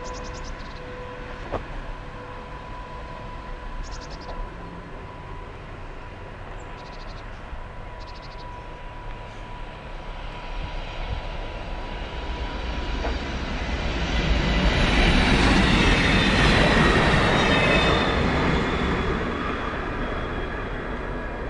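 An SBB Re 450 locomotive pulls a double-deck S-Bahn train away through snow, with a steady whine over the first half. Then a Stadler GTW articulated railcar comes up and passes close by. Its rumble and rail noise grow loud about two-thirds through and ease off near the end.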